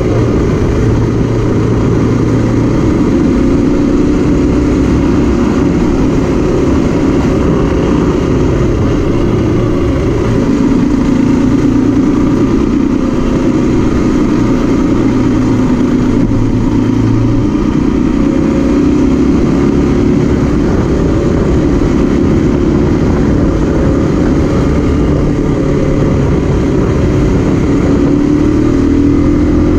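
Zongshen RX3's 250 cc single-cylinder engine running at low road speed. Its note shifts a few times with the throttle and rises near the end.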